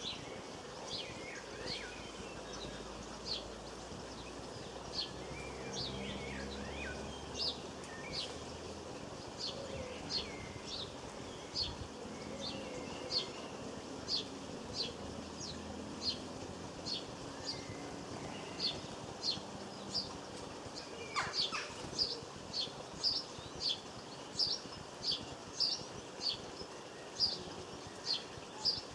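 Small garden songbird calling with short, high chirps repeated over and over, about one a second at first and quickening to about two a second in the last third, with a few brief lower twittering phrases mixed in.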